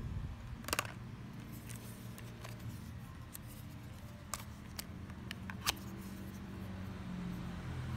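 Sharp little plastic clicks and taps from a JisuLife handheld fan being handled and its head folded on its hinge, about eight scattered clicks, over a faint steady low hum.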